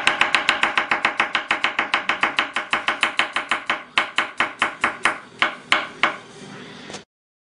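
Knife slicing garlic cloves on a wooden cutting board: a fast, even run of about six or seven blade taps a second. The taps slow and space out in the last few seconds, then stop suddenly near the end.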